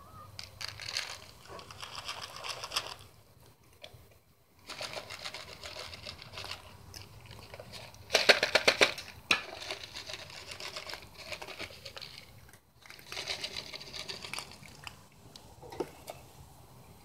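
Cats crunching dry kibble: fast runs of crisp crunching clicks come in bursts of one to three seconds, with short pauses between them. The loudest burst is about eight seconds in.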